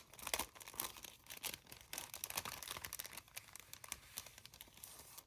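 Stationery packaging crinkling and rustling as die cuts and sticker sets are handled, a run of quick irregular crackles.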